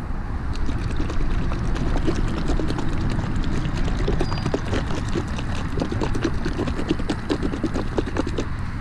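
A plastic bottle of headlight restoration liquid being shaken by hand, giving a quick, uneven run of clicking and knocking, with a steady low rumble underneath.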